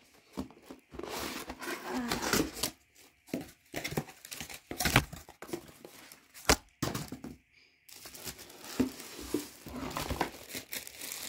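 Kettle box and its packaging being torn open and unpacked by hand: irregular crinkling and tearing, with two sharp knocks about five and six and a half seconds in.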